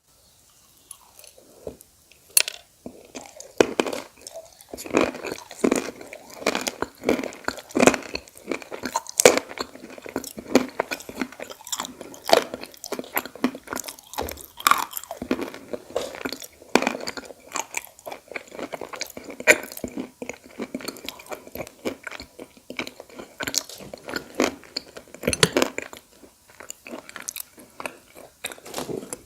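Edible clay (khawa) being bitten and chewed: dense, irregular crisp crunches with chewing in between, starting about a second in.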